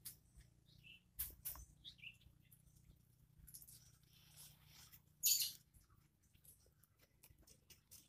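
Faint clicks and scrapes from hand work on a slingshot: pliers and rubber band being worked against the wooden fork as the band is tied on, with a brief louder scraping rasp about five seconds in.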